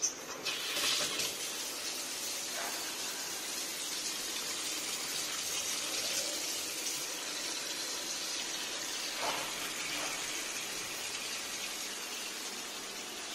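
Water running from a newly fitted wall-mounted sink cock in a steady stream into a stainless-steel sink, a steady splashing hiss. A brief click sounds at the very start.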